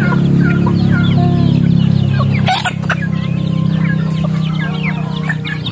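A flock of young chickens crowding to be hand-fed, clucking and peeping in many short overlapping calls. Under them runs a low steady hum that drops away about halfway through, where a brief sharp noise cuts in.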